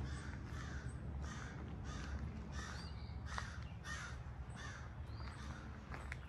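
A bird calling in a steady series of about nine calls, roughly three every two seconds, growing fainter near the end, over a steady low rumble.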